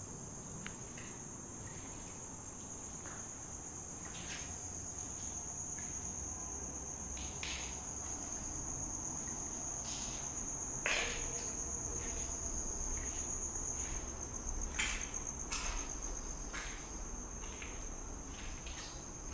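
Steady high-pitched chirring of a cricket chorus, with a few short knocks scattered through it.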